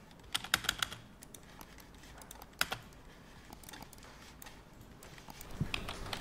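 Typing on a computer keyboard: a quick run of key clicks in the first second, then sparser single keystrokes, with more clicking near the end.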